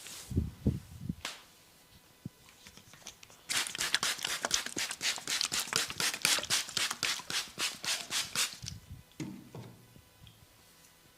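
Head massage by hand: fingers rubbing and scratching briskly through the hair on the scalp in quick rhythmic strokes, about four a second, for some five seconds. A few dull taps on the head in the first second and again near the end.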